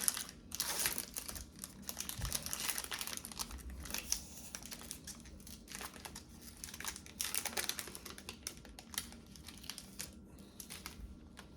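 Trading card pack wrapper crinkling and being torn open, with irregular crackling rustles.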